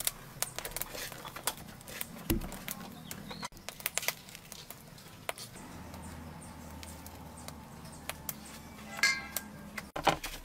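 Dry, coarse breadcrumbs crunching and rustling in many small crackles as hands press chicken pieces into them and toss the crumbs. A short high chirp sounds near the end.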